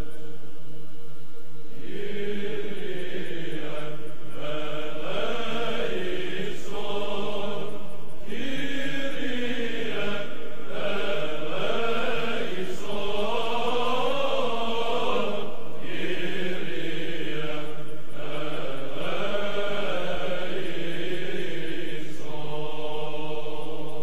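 Orthodox church chant: a sung melody in short phrases over a steady held drone, the melody coming in about two seconds in.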